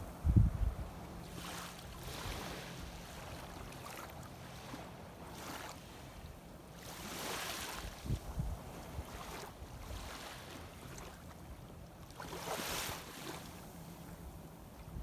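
Shallow seawater washing in soft, irregular swells, with wind on the microphone and a low thump about half a second in.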